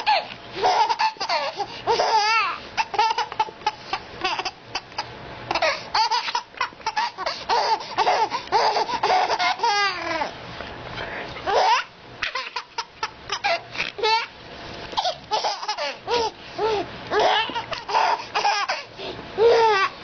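A baby laughing hard in rapid, repeated bursts of giggles, with a few high wavering squeals.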